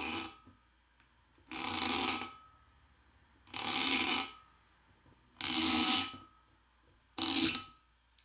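Natural wine cork rubbing against the glass bottle neck as a two-prong Ah-So cork puller twists it and draws it out slowly. Five squeaky rasping strokes, each under a second, about two seconds apart.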